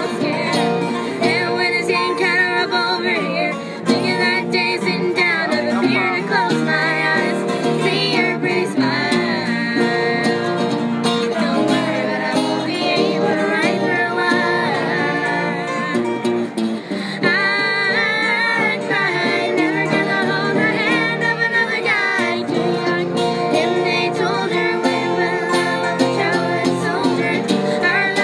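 Live acoustic country-style jam: guitars picked and strummed with a voice singing.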